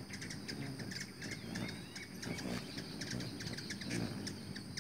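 Hummingbirds chattering in many quick, high chirps while hovering, over the low hum of their wings.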